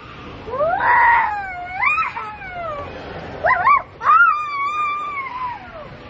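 A young child's high voice in a run of drawn-out squeals and whines, four or five calls that swoop up and then slide down in pitch, two short ones in quick succession a little past the middle and the longest near the end.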